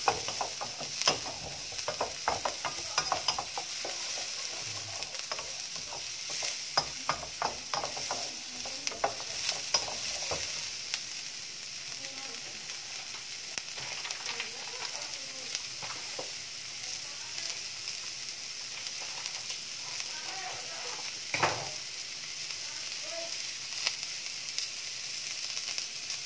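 Sliced shallots and garlic sizzling in hot oil in a wok, with a steady hiss. A wooden spatula scrapes and taps against the wok many times in the first ten seconds or so, then only now and then. One louder knock comes about two-thirds of the way through.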